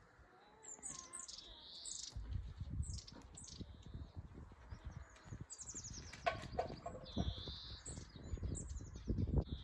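Small songbirds singing and calling repeatedly with high down-slurred whistles and buzzy notes. From about two seconds in, a low, uneven rumble runs underneath.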